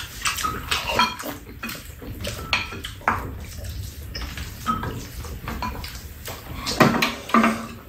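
Spoons and chopsticks clinking and scraping against ceramic bowls, a pan and a metal serving tray as two people eat, in scattered short clicks. A louder cluster of clinks comes near the end.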